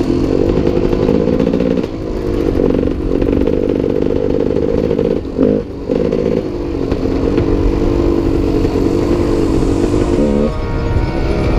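Enduro motorcycle engine running and revving, its pitch rising and falling with the throttle. It dips briefly about two seconds in and again around five and a half seconds in.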